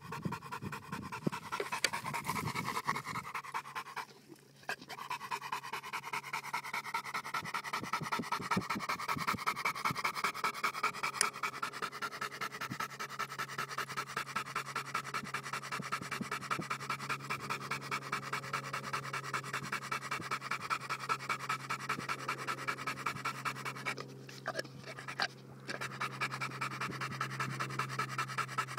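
Johnson-type American bulldog panting fast and heavily, open-mouthed, stopping briefly twice. A steady low hum runs underneath from about three seconds in.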